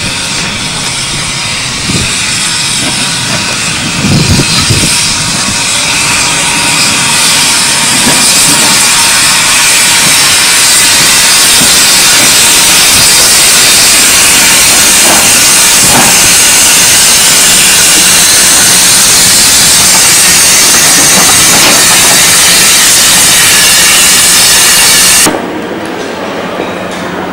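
Steam locomotive blowing off steam: a loud, steady hiss that builds over the first several seconds, holds, and then stops abruptly near the end, with a few low knocks early on.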